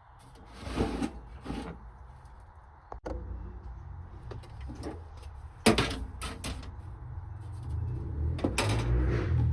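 Irregular knocks and clicks of hands working inside a desktop PC case while plugging in cable connectors, with a sharp click about three seconds in and clusters of knocks near six and nine seconds.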